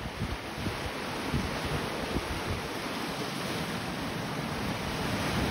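Ocean surf washing over and around rocky ledges in a steady rush, with wind buffeting the microphone in low rumbles.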